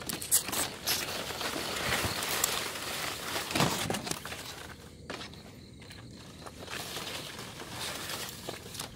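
Leaves and branches rustling and brushing against someone pushing through dense undergrowth on foot, with footsteps and small snapping ticks. It is loudest over the first four seconds or so, then quieter.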